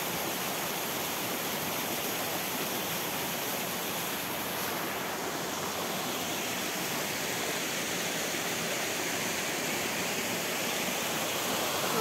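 Water running steadily down a small forest waterfall and along its rocky stream, an even rushing noise with no breaks.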